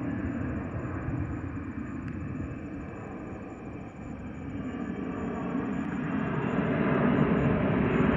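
Jet engines of a United Airlines Boeing 777-222(ER) airliner running, a steady rumbling roar that grows louder over the last few seconds.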